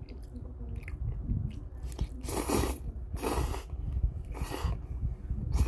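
A person slurping Paldo Bibim-myeon spicy mixed noodles, with four loud slurps in the second half. Chewing runs throughout.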